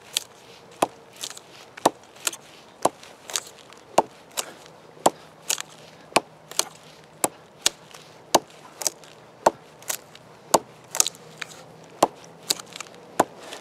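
A steel double-edged combat dagger (Kizlyar Kalibr) being stabbed point-first into a log again and again, each blow a sharp knock of the blade tip biting into wood, about two a second at a steady pace. It is a test of how well the dagger's point stands up to hard stabbing into wood.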